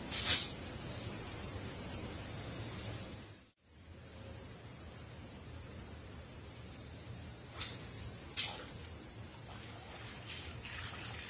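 Steady high-pitched insect chorus, with a few short clicks; the sound cuts out for a moment about three and a half seconds in.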